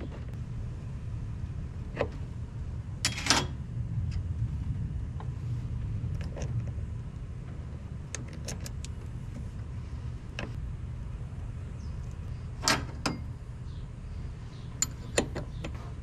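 Scattered metallic clicks and clinks of a battery cable's ring lug and bolt being handled and fitted to a side-post car battery terminal, with a combination wrench picked up near the end, over a steady low rumble.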